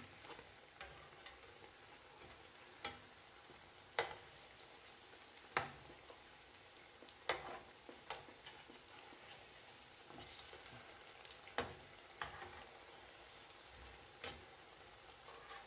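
Falafel patties shallow-frying in oil in a frying pan, a soft steady sizzle. A metal slotted spatula clicks sharply against the pan about ten times as the patties are pushed and turned.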